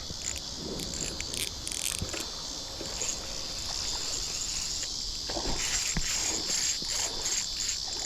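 Insects chirping in a steady, high-pitched chorus with a fast pulsing rhythm.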